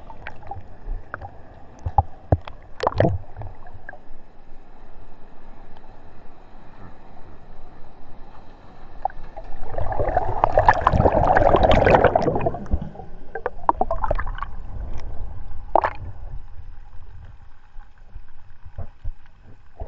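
Sea water sloshing and slapping against a camera housing held at the surface in small surf, with a few sharp splashes. About ten seconds in, a breaking wave's whitewater rushes past loudly for two or three seconds as a surfer rides close by.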